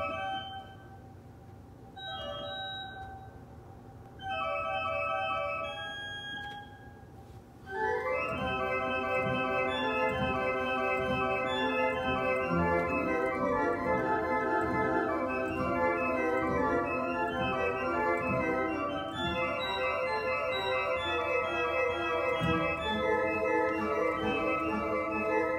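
Wicks church organ playing on flute stops: a few quiet, separate chords, then from about eight seconds a fast, continuous run of short detached notes over a bass line.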